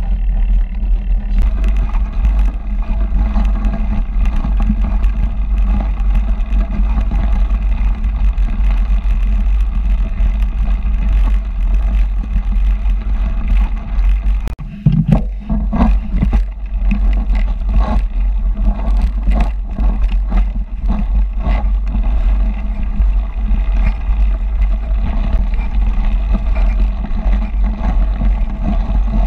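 A mountain bike riding fast over a rough, snowy trail: tyres running on packed snow and ruts, with frequent rattling knocks from the bike over bumps, under a steady heavy rumble of wind buffeting the camera's microphone. Near the middle the noise dips briefly and picks up again.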